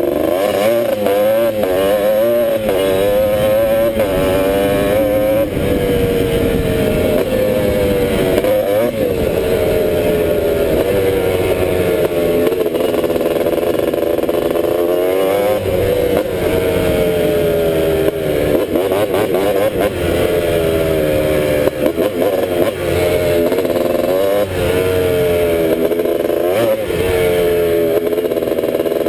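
Honda ATC250R three-wheeler's two-stroke single-cylinder engine under way. Its pitch repeatedly climbs as it revs up, then drops back as the throttle is eased and gears are changed.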